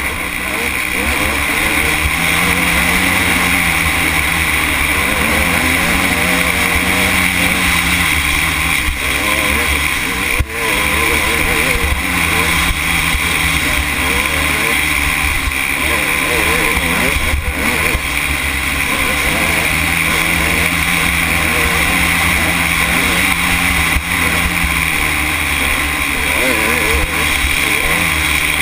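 Dirt bike engine running hard at racing speed, its pitch rising and falling with the throttle. The engine briefly drops off about ten seconds in and again about seventeen seconds in.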